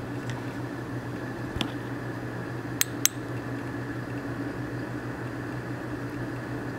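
Steady low hum of running aquarium equipment, with a light click about a second and a half in and two sharp clicks close together about three seconds in.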